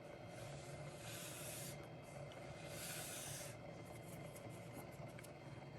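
Two brief rubbing, wiping swishes about a second apart, with small scratchy touches between them, over a low steady hum.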